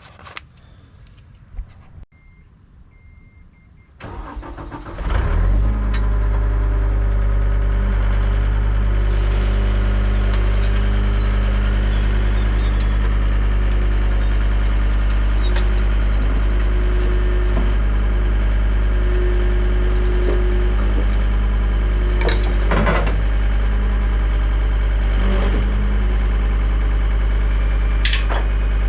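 John Deere 326D skid steer: a few short beeps, then its diesel engine cranks and starts about five seconds in and settles into a steady idle. A few sharp knocks and clicks come over the idle near the end.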